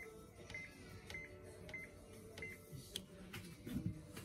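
Microwave oven beeping: five short high beeps about every half second or so, stopping about two and a half seconds in, with a few light clicks, then a low knock near the end.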